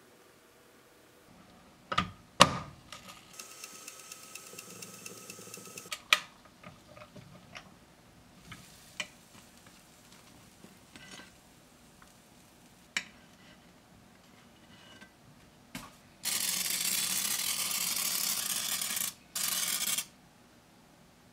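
Oil spray bottle hissing in two squirts, one of about three seconds and then a short one, coating the plates of an electric fish-shaped bungeoppang maker. Earlier come sharp clacks and knocks of utensils against the maker, the loudest about two seconds in.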